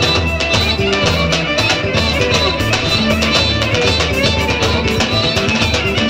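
Roman havası dance music playing loud and continuously, with a steady drumbeat under a melodic instrumental line.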